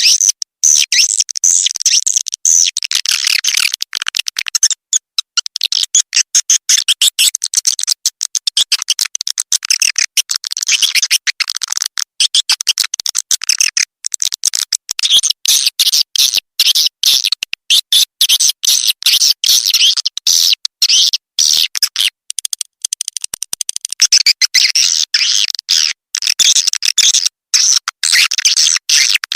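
Recorded swiftlet calls: a fast, unbroken twittering of high, shrill chirps with tiny gaps between them. This is a swiftlet call sound of the kind played from speakers in swiftlet houses to lure the birds in and get them to respond.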